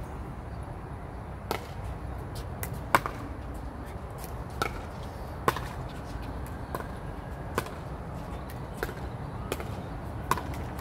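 Pickleball paddles striking a plastic pickleball in a rally: sharp pops about once a second, unevenly spaced, over a steady low rumble.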